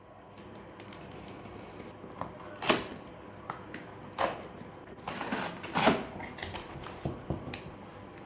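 Cardboard box of a monitor being opened and its packing handled: irregular scrapes, rustles and small taps, with a few sharper knocks, the loudest about two-thirds of the way through.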